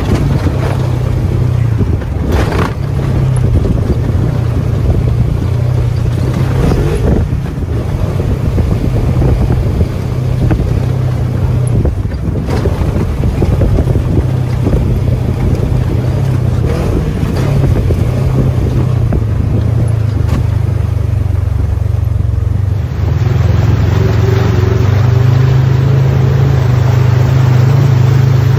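Polaris RZR side-by-side's engine running steadily at trail speed, with scattered knocks and scrapes from the rough dirt trail and brush. About three-quarters of the way through, the engine drone becomes louder and steadier.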